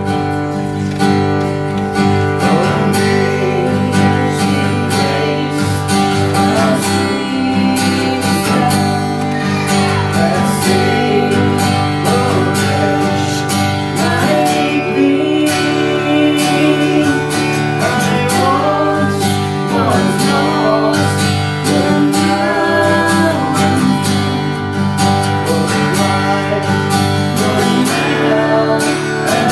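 Acoustic guitar strummed steadily, with a voice singing a slow melody over it.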